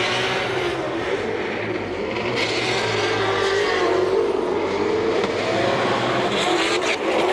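Two drift cars, a Nissan Silvia and a homebuilt car, sliding in tandem. Their engines are held at high revs with wavering pitch, over the steady hiss and squeal of spinning tyres.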